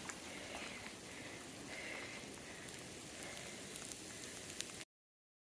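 Faint crackling rustle of footsteps shuffling through dry leaf litter and wood chips, with a few light clicks. The sound cuts off abruptly near the end.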